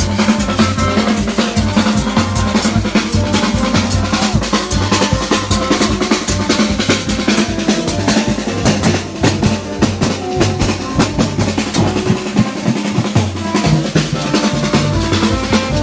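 Street band playing: a dense, fast beat of hand drums and marching drums, with brass horns holding low and middle notes over it.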